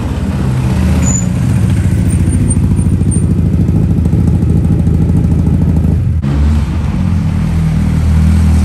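Rally car engines running at low revs as the cars roll slowly: first the Opel Kadett C coupé's four-cylinder with a fast, even throb, then, after an abrupt change about six seconds in, the BMW E30 M3's four-cylinder engine.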